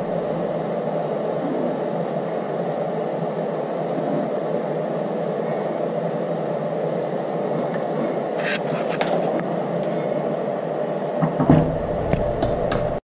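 Steady background hum with a few light clicks and clinks of a cam phaser being handled on a workbench, about eight and a half seconds in and again near the end; the sound then cuts off suddenly.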